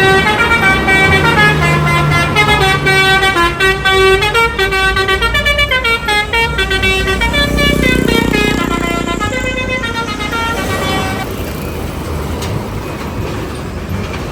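Telolet multi-tone air horn on a bus or truck playing a quick melody of stepped notes for about eleven seconds, then falling silent and leaving the steady noise of the vehicle running.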